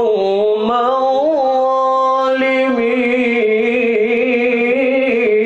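Melodic Quran recitation by a young male reciter, one voice chanting in the ornamented tajwid style: a few quick wavering turns in the pitch in the first second or so, then one long note held steadily to the end.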